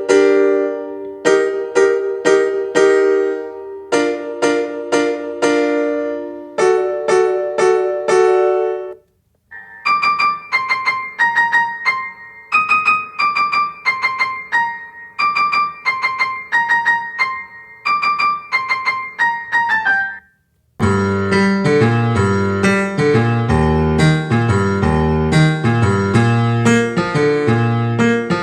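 Keyboard music: repeated piano-like chords, then after a short break a high, bright melody, then after another break a fuller part with a deep bass line.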